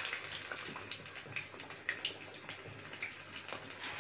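Urad dal vadai deep-frying in hot oil in a kadai: a steady sizzle with many small, irregular crackles and pops.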